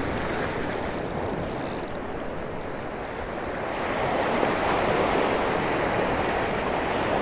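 Ocean surf washing up onto a sandy beach, a steady wash that swells louder about four seconds in.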